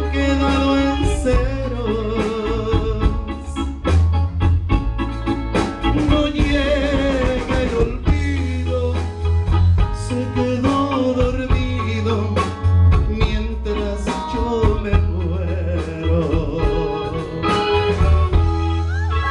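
Live band playing a ballad with electric bass, drum kit, keyboards and electric guitar: a steady pulsing bass under a wavering melody line, in a passage without sung lyrics.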